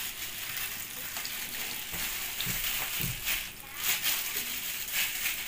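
Hot oil sizzling in a frying pan as patties of rice porridge and duck-egg batter fry, while a second spoonful of batter is dropped in. The sizzle grows louder in the middle.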